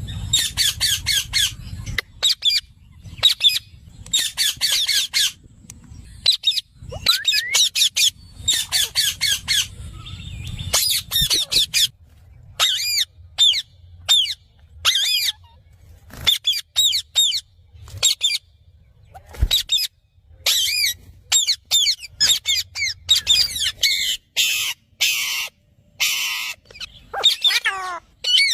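Parrot calling in repeated bursts of rapid, high-pitched squawks, with short pauses between groups and a few harsher, raspy calls in the second half.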